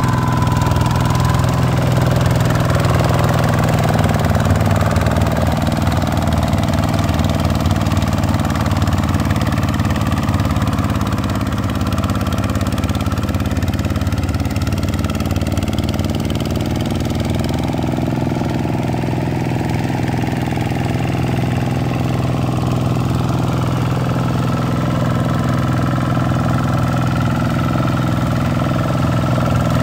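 Vikyno RV 125-2 two-wheel tractor's single-cylinder diesel engine running steadily while the tractor works through a flooded paddy field.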